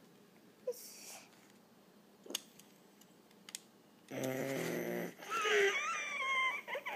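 A few faint clicks of plastic Lego pieces being handled. About four seconds in there is a brief low hum-like voice, then a child's high, wavering wordless vocalising for about two seconds.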